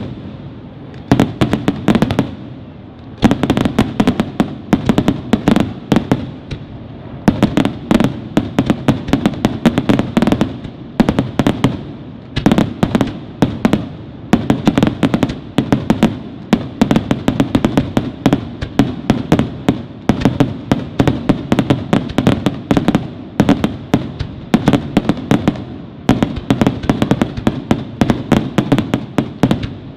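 Aerial fireworks display: a rapid, continuous barrage of shell bursts, many loud bangs a second, with a low rumble of echoes between them and a brief lull about two seconds in.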